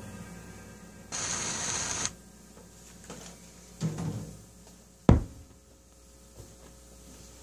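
Handling noises as a drummer gets up from a drum kit after playing: a short rustling hiss about a second in, a couple of soft knocks, then one sharp deep thump about five seconds in, over a faint steady hum.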